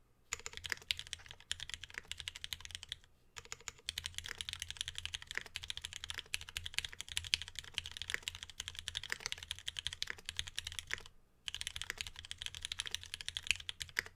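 Fast, continuous typing on a Geon Works F1-8X mechanical keyboard with lubed Cherry Retooled Black linear switches, an aluminium plate and ABS keycaps. The rapid keystrokes pause briefly about three seconds in and again about eleven seconds in.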